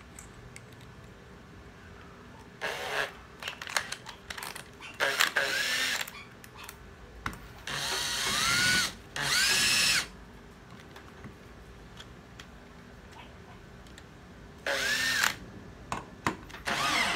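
Cordless Makita drill driver run in about six short trigger bursts as it drives a screw into hard wood, its motor whining up in pitch at the start of each burst and then holding. The variable-speed trigger is working smoothly.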